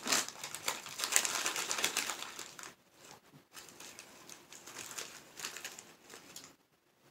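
A bag of Takis Fuego crinkling as it is handled and pulled open: a dense run of crackling for the first couple of seconds, then softer, scattered crinkles.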